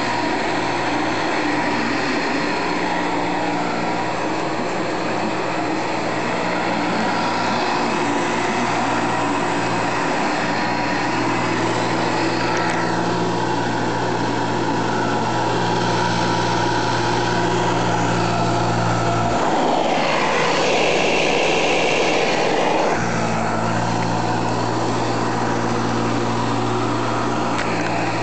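Late-1950s Hoover Model 63 upright vacuum cleaner running steadily, its motor bearings recently replaced, giving a loud, even motor hum. About two-thirds of the way through, the low hum drops out for a few seconds and the tone shifts, then the steady hum returns.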